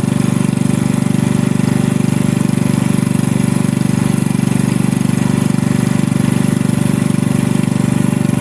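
An engine running steadily at constant speed, a loud, even low drone with a fast regular pulse.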